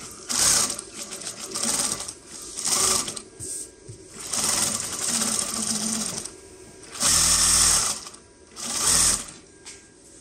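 Zoyer ZY2290-D4 computer-controlled high-speed zigzag sewing machine stitching a zigzag seam in a series of short runs, stopping and starting again several times with brief pauses between; the longest run lasts about two seconds.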